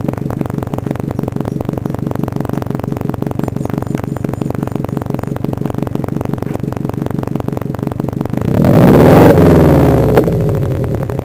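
2005 Subaru Impreza WRX's turbocharged flat-four idling through an Afterburner Vortex centre section and silencer: a steady, evenly pulsing exhaust burble at the tailpipe. Near the end a single blip of the throttle makes it much louder, rising in pitch and falling back to idle.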